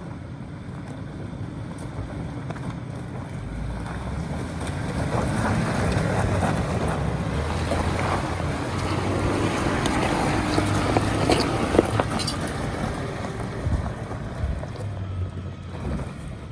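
Ford Ranger's 2.3L EcoBoost turbo four-cylinder engine pulling the truck up a loose-rock hill, with the tyres crunching over and kicking up stones. It gets louder as the truck passes, with sharp rock knocks at the loudest point, then eases off as it climbs away.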